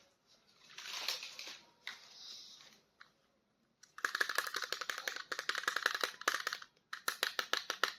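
Plastic toy packaging being handled: a brief crinkle about a second in, then from about four seconds in a long run of fast, sharp plastic clicks that thins out near the end.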